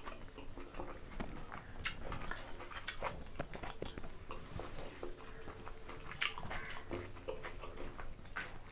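Close-up chewing of a mouthful of mutton biryani and egg, with irregular wet mouth clicks and smacks, and the fingers mixing rice on a banana leaf.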